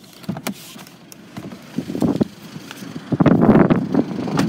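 Handling knocks and rustling as the phone is carried out of the car, then loud wind buffeting the microphone from about three seconds in.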